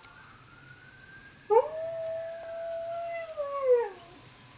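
Alaskan malamute howling once: a long howl starting about a second and a half in, sliding up at the start, holding a steady pitch, then falling away near the end.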